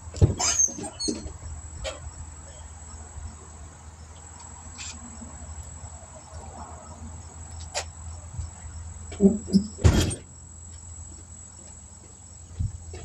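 Crickets chirping steadily in a thin high line, with scattered clicks and a cluster of louder knocks about nine to ten seconds in as tools and parts are handled.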